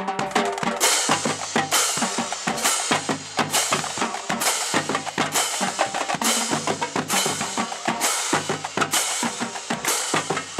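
A marching drumline playing a cadence: snare drums rolling and rattling over tenor drums and tuned marching bass drums, with the cymbal line crashing about once a second.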